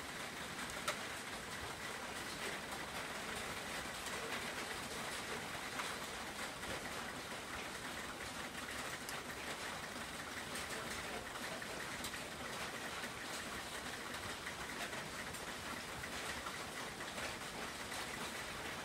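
Batter-coated breadfruit sticks frying in a pan of oil that is not yet very hot: a faint, steady sizzle with fine crackling, and one light click about a second in.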